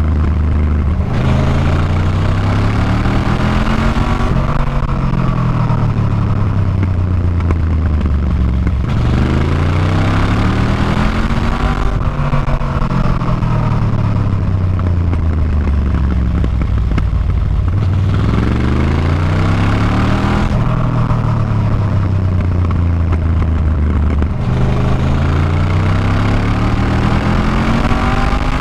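Engine of the vehicle carrying the camera, pulling hard then easing off about four times: its pitch climbs for a few seconds, then falls away more slowly, with a rushing noise over it during the climbs.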